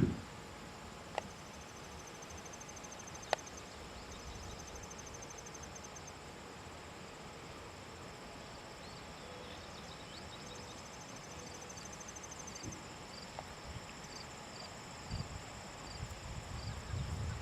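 Insects chirping outdoors in rapid, evenly pulsed high trills that come and go in three stretches, over a steady faint background. There are a few sharp clicks early on and low thumps near the end.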